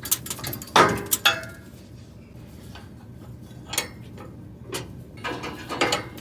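Irregular metal clanks and clinks from hand work on a combine's concave, its retaining pins being pulled and parts handled; the loudest knock comes about a second in.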